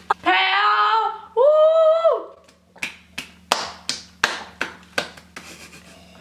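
A girl's voice gives two drawn-out, high-pitched wails of disgust at a foul-tasting jelly bean, then a run of about ten sharp hand claps.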